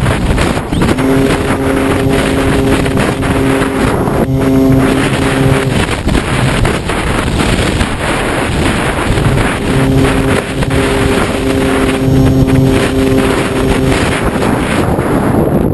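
Loud wind buffeting the on-board camera of a Radian Pro RC glider, with the glider's electric motor and propeller humming at a steady pitch in two stretches of several seconds each: about a second in, and again from about ten seconds in.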